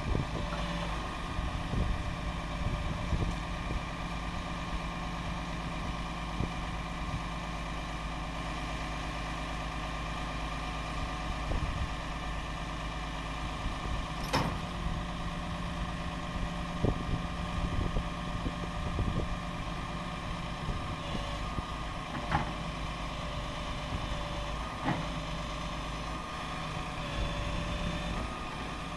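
PACCAR PX-8 8.3-litre diesel engine of a Peterbilt 337 running steadily while its hydraulic crane is worked and the boom folded down, with scattered clanks and one sharp knock about halfway through.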